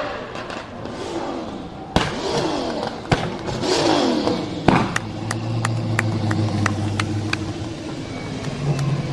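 Performance car engine revving and dropping back, with three sharp exhaust bangs in the first half; it then settles to a steady note while a string of quick, light exhaust pops and crackles goes off.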